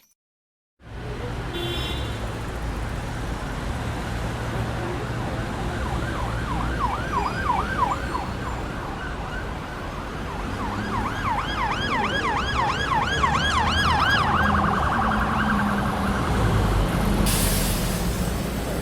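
An emergency-vehicle siren wails in fast up-and-down pitch sweeps over a steady low traffic rumble. It starts about six seconds in, breaks off briefly, then comes back and speeds up before stopping. A short hiss follows near the end.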